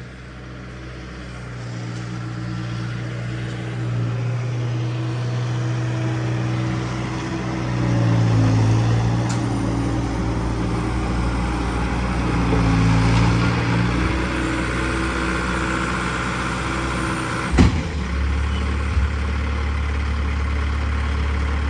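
A motor vehicle's engine running and being driven, its pitch rising and falling. A sharp click about three-quarters of the way through, followed by a steadier, lower hum.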